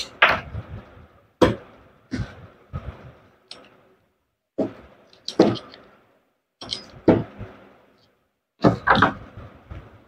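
Knocks and clatter of a DeWalt DW801 angle grinder's gear housing and a screwdriver being handled on a workbench during reassembly: about ten sharp knocks in irregular clusters, some with a short ring.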